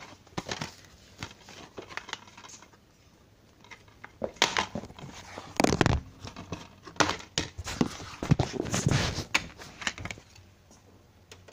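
Plastic DVD case being handled and opened and the disc taken out: a run of clicks, snaps and rustling, sparse at first and busiest from about four to ten seconds in.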